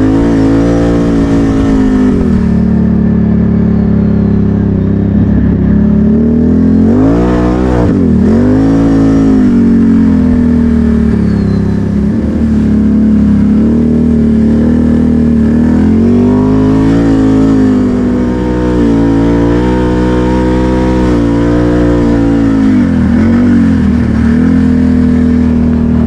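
ATV engine running under load, its pitch rising and falling again and again as the throttle is opened and eased.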